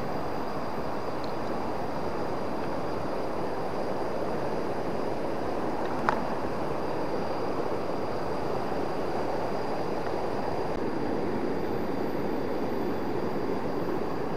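Swollen, fast-flowing river after heavy rain, rushing steadily, with a faint steady high tone above it and a single sharp click about six seconds in.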